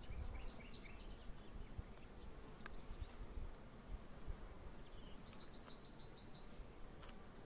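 Honeybees humming faintly around an open hive's exposed frames, with a light click partway through and a short run of faint high chirps about five seconds in.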